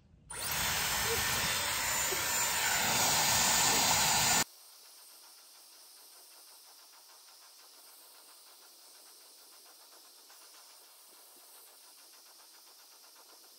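Dyson Airwrap hair styler with its dryer attachment on the blowing setting, a loud, steady rush of air from the tool's fan. About four seconds in it cuts off abruptly, leaving only a faint hiss.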